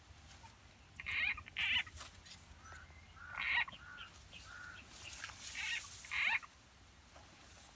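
Frog calls: a string of short, high calls, one every second or so, with a brief hiss near the middle.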